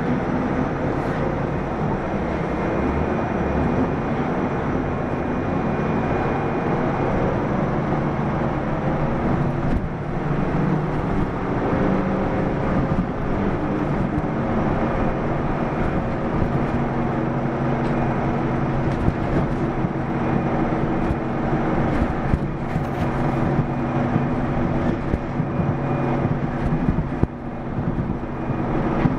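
Diesel engine of a Mitsubishi Fuso PDG-AA273KAN city bus running steadily as the bus drives along, with road noise.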